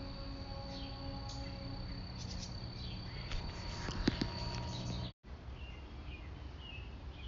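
Outdoor ambience: a steady high insect trill with short bird chirps over a low steady hum, and a short knock about four seconds in. The sound drops out completely for an instant about five seconds in, after which the trill is gone and the chirps go on.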